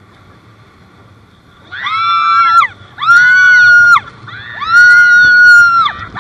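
Women on a towed banana boat screaming and whooping with excitement: three long, high-pitched shrieks of several voices together, each about a second, starting about two seconds in. Before them there is only a low rush of wind and water.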